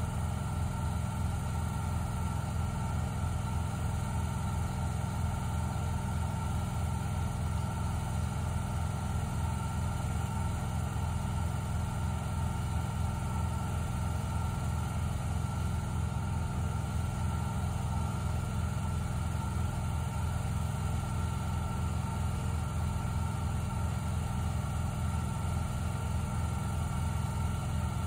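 Engine of a shed-hauling truck and trailer rig running at a steady idle: an even low drone with a faint steady whine above it.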